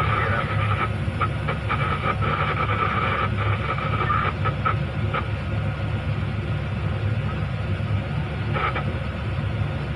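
Excavator's diesel engine running steadily, with a high whine and a series of short knocks over the first five seconds or so.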